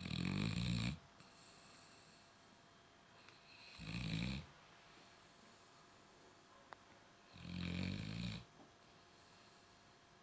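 Labrador snoring in its sleep: three snores about three and a half seconds apart, each lasting about a second.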